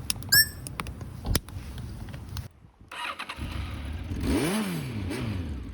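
A short electronic beep, then after a brief pause a Honda CB1000SF's inline-four motorcycle engine starts. It is blipped once, pitch rising and falling, with a smaller second blip near the end.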